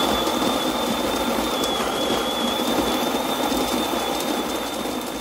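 Espresso machine's built-in burr grinder running steadily, grinding coffee beans into a hand-held portafilter, with a thin high whine over the grinding noise.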